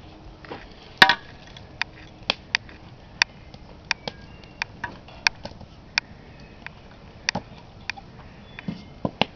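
Small wood fire crackling in a concrete-block fire pit: sharp, irregular pops, roughly one or two a second. One louder knock comes about a second in.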